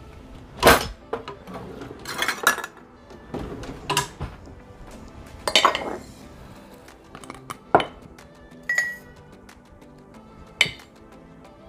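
Glass mason jars and a metal measuring cup clinking and knocking against each other and the granite countertop, about eight separate knocks, one near the end ringing briefly. Soft background music runs underneath.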